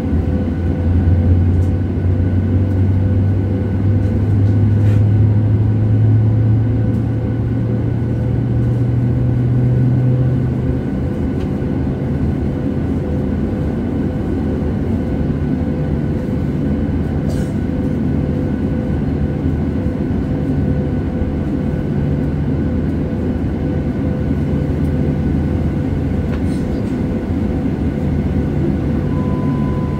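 Boeing 737's engines heard from inside the cabin: a steady low rumble with a hum that rises in pitch over the first ten seconds or so, then holds steady.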